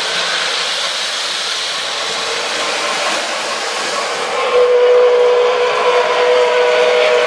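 O gauge model trains rolling on three-rail track, a steady rumble and hiss of wheels and motors. About four and a half seconds in, the Southern Pacific cab forward model's electronic steam whistle starts sounding a held chord of several notes.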